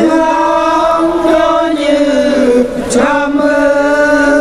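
Men chanting together in long held notes that shift in pitch every second or so: a traditional Naga group chant, led by a voice sung into a microphone.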